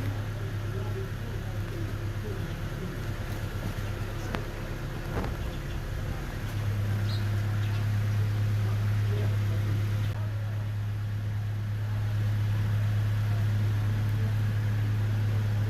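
Toyota 14B four-cylinder diesel engine running steadily at idle, with a steady low drone that grows stronger about six seconds in. A couple of sharp clicks come a few seconds in.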